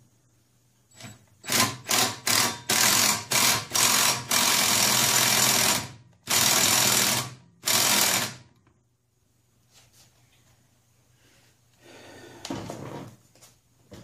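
Impact wrench with a 3/8-inch drive and a 9/16 socket hammering a lawn mower's blade bolt tight, the blade having worked loose and clunked. It goes in about seven short trigger bursts, then three longer runs of one to two seconds, and stops a little past halfway.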